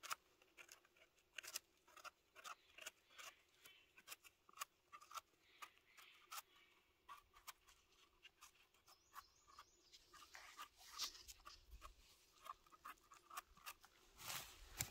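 Faint, irregular crackles and snaps of dry forest litter being disturbed, with a few louder clicks near the end.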